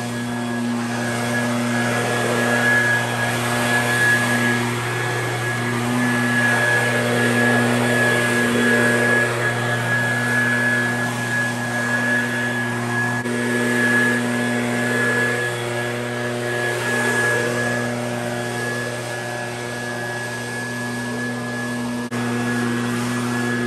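Handheld two-stroke leaf blower running steadily, a steady engine drone under a high whine.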